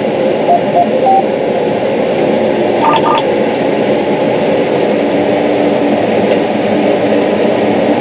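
Combine running steadily while harvesting corn, heard from inside the cab. A few short electronic beeps come in the first second and again about three seconds in.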